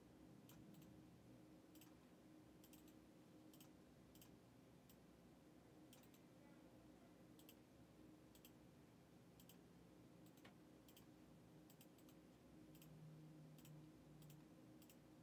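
Near silence with faint, irregular clicks of a computer mouse, many in quick pairs, over a low steady hum.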